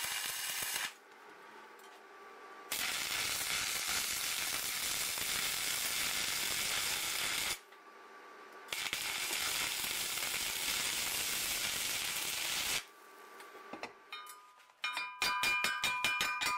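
Stick (arc) welding a steel tube to its flange: three runs of steady crackling sizzle, the longest about five seconds, with short pauses between. Near the end a chipping hammer taps rapidly on the fresh weld to knock off the slag, the metal ringing with each blow.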